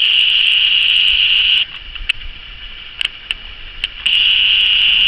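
An insect buzzing loudly and steadily at a high pitch in two stretches, cutting off abruptly about a second and a half in and starting again abruptly about a second before the end, with a few light clicks in the gap.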